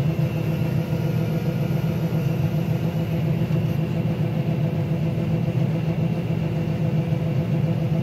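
Combine harvester's engine and machinery running steadily while it unloads wheat through its unloading auger, heard from inside the cab: an even, steady drone.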